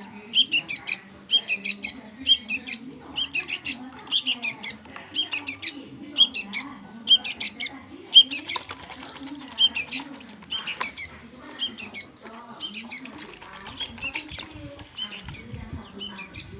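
Young songbirds, starling and bulbul chicks, begging for food with shrill repeated chirps, about one or two a second, as they are hand-fed.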